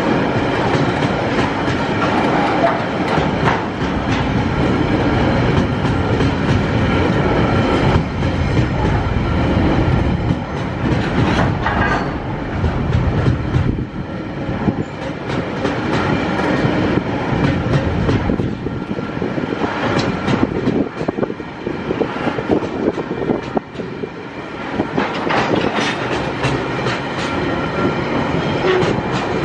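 Container flat wagons of a Tasrail freight train rolling past close by: a steady rumble of steel wheels with repeated clicks over the rail joints and faint steady high ringing tones running through it.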